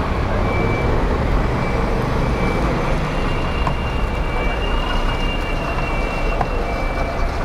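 Street traffic: a steady low rumble of buses and trucks, with a faint high beep repeating through it.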